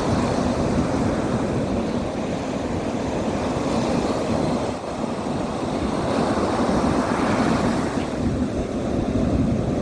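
Steady rushing of wind on the microphone mixed with sea surf, heaviest in the low end and swelling and easing unevenly.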